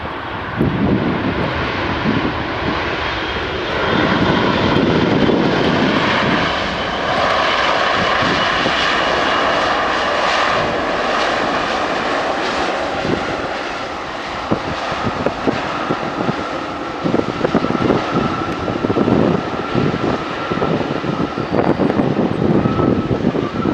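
Boeing 787's jet engines in reverse thrust during the landing rollout: a loud rushing roar with a whine, strongest in the middle, then easing to a steady high whine as the engines spool down. Gusts of wind hit the microphone near the end.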